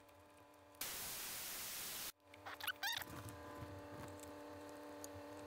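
Air hissing out of a trailer tire's valve stem as the valve core is pressed, for about a second before cutting off sharply; a second hiss starts at the very end. The brief drop in tire pressure is what wakes the new TPMS valve-stem sensor so the truck can learn it.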